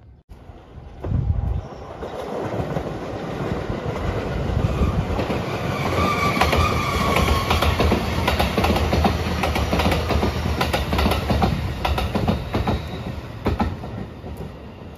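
The Marine Liner rapid electric train (JR West 223-5000 series with JR Shikoku 5000 series cars) passing close by: a steady rumble with wheels clicking over the rail joints, building over the first couple of seconds. A brief high whine sounds around the middle, and the noise eases off near the end as the train moves away.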